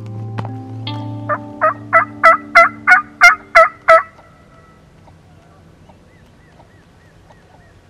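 A turkey-call series of about nine loud notes, roughly three a second, each dropping in pitch like a hen turkey's yelp, over background music that fades out as the calls end. A few faint, softer call notes follow near the end.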